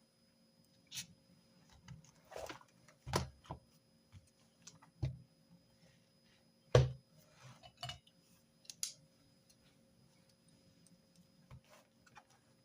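Irregular clicks and knocks of pens and stationery being picked up and set down on a desk, about nine in all, the loudest about seven seconds in.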